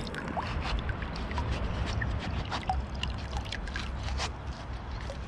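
Shallow river water trickling and splashing around a gloved hand as it lifts an old glass bottle from the riverbed, with scattered small drips and ticks over a low rumble.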